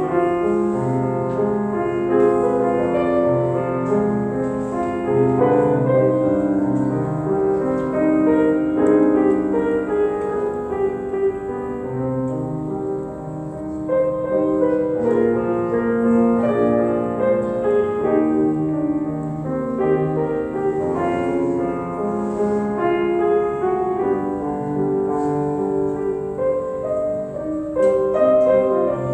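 Grand piano playing a continuous piece, many notes and chords in changing patterns without a break, briefly softer about thirteen seconds in.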